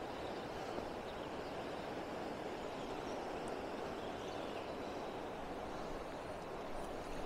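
Steady rush of a fast-flowing river running high with snowmelt.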